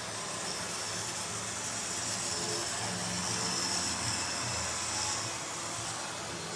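Model railway trains running on the layout: a steady whirr from their small electric motors and wheels on the rails, swelling a little for a few seconds in the middle.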